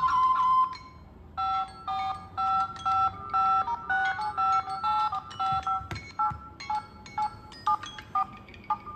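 Smartphone ring or alert tone played electronically. A chime dies away in the first second, then a melody of short beeps alternates between a higher and a lower pitch, about two to three notes a second. About six seconds in it turns into quicker, more varied plucked-sounding notes.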